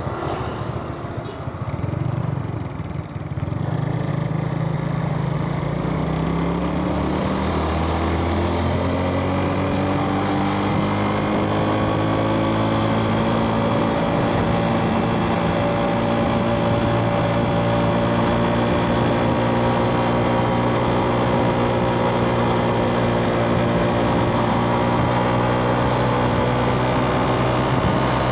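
Suzuki Smash motorbike's single-cylinder four-stroke engine, low and uneven for the first few seconds, then pulling away with its pitch rising steadily for about ten seconds before holding steady at cruising speed.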